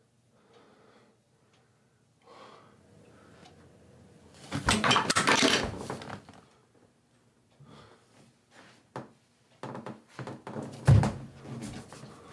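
Clattering and thumping of things being handled and knocked about in a small bathroom, in a loud burst about five seconds in and again near the end with one heavy thump, and a few lone knocks between.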